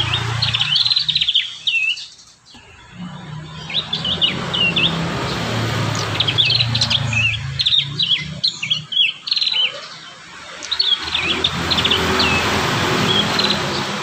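Prinias singing in bouts of quick, sharp, repeated chirping notes, with short pauses between bouts. A low rumble runs underneath.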